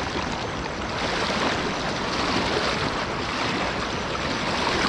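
River water rushing past in a strong current, a steady, even rush of noise; the river is running high after rain.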